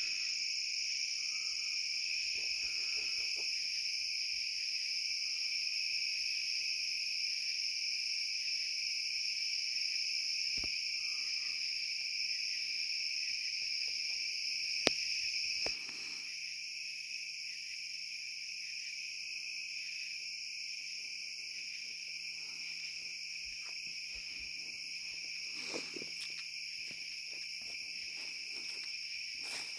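Night chorus of crickets and other insects, a continuous high-pitched drone that drops slightly in level about halfway through. Faint footsteps and rustling in the weeds, with one sharp click about halfway.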